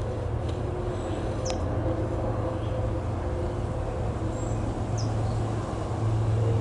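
A steady low mechanical drone, with a few short, high chirps from small birds scattered over it, the clearest about a second and a half in and again near the end.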